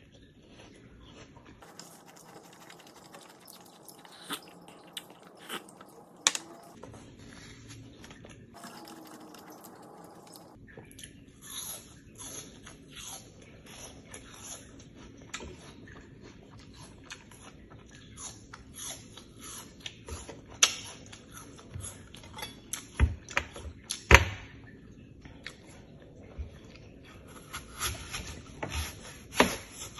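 Crunchy biting and chewing of raw apple slices, with many small crackly clicks and a few sharper knocks. Near the end a knife cuts through an apple onto a wooden cutting board.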